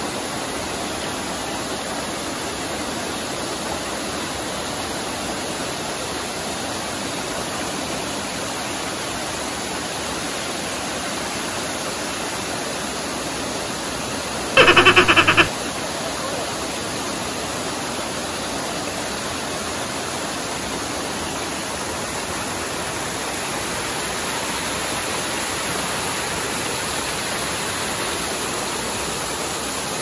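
River water rushing steadily over a rocky cascade and rapids. About halfway through, a loud pitched sound with a fast pulsing flutter cuts in for about a second, louder than the water.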